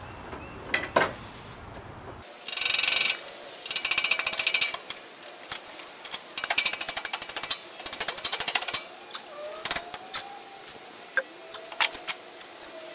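A steel pin punch working against a pivot pin in a pallet stacker's lift linkage, making rapid metal-on-metal clicking and rattling. There are four runs of about a second each, with scattered single clicks between and after them.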